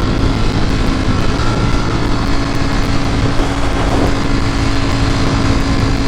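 Ducati Panigale V4 S motorcycle riding at a steady speed: the V4 engine's even running note under a steady rush of wind noise.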